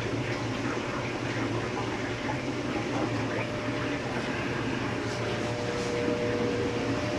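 Steady low hum of fish-room equipment, with light water sloshing and dripping as gloved hands lift a dead stingray out of the aquarium. A faint steady tone joins about five seconds in.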